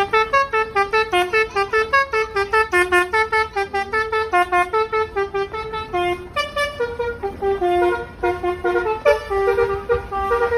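Basuri 'telolet' multi-tone bus horn playing a tune: a rapid run of short pitched toots, about four a second, stepping up and down in pitch.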